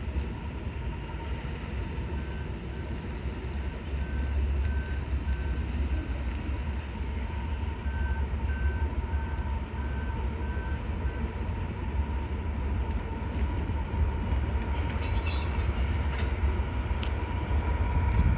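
Union Pacific freight train's diesel locomotives approaching, a low steady rumble with a faint steady whine above it. From about two seconds in to about eleven seconds, a high beep repeats about twice a second, with a short break in the middle.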